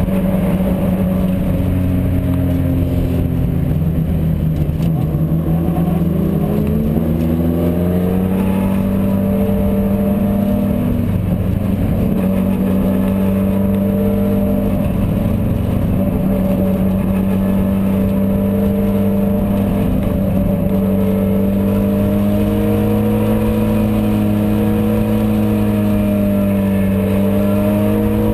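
Race car engine running hard at racing speed, heard onboard: its pitch climbs over several seconds early on, then holds near steady with slight rises and dips as the throttle is worked.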